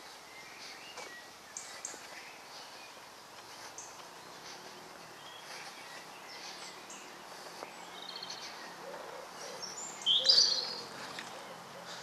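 Woodland birdsong: several small birds chirping and singing in short high phrases, with one louder call about ten seconds in and a few low repeated notes near the end.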